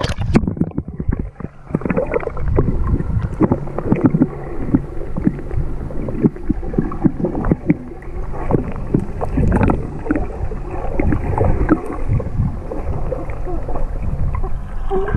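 Muffled underwater sound of a swimming pool, heard by a submerged camera: water churning and bubbling, with many small irregular crackles and knocks, as a swimmer kicks and strokes close by.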